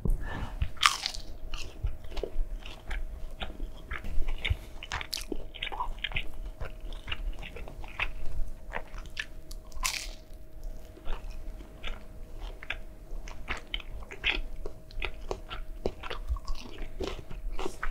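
McDonald's chicken nugget being bitten and chewed close to the microphone: crisp crunches of the breaded coating and wet mouth clicks throughout, with several louder crunches.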